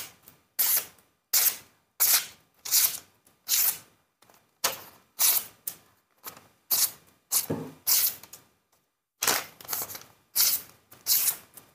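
Sickle blade of spring steel slicing through a sheet of paper again and again: about sixteen short, quick slicing rips, roughly two a second, with brief pauses around four and nine seconds in. The cuts are a test of how sharp the edge is.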